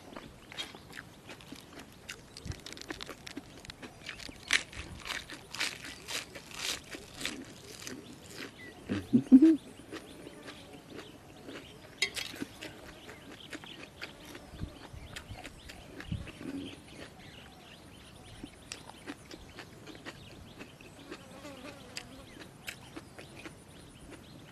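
Close-up chewing and crunching of jellyfish salad and fresh vegetables, with wet mouth clicks and smacks. A short hum comes about nine seconds in.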